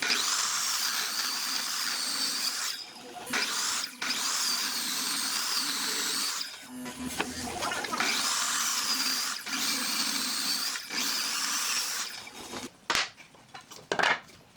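A handheld power tool working wood, running in stretches of one to three seconds with short breaks, its high whine wavering. Near the end it stops and a few sharp knocks follow.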